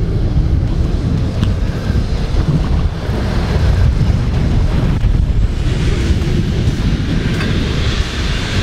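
Wind buffeting the microphone over the rush of rough sea around a small boat, a steady loud rumble. A brighter hiss joins about five and a half seconds in.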